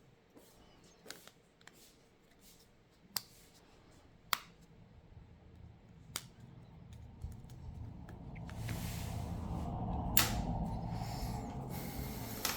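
Sparse small clicks and taps of tools and small phone parts being handled during a smartphone repair, with a low hum and rustling that build up near the end.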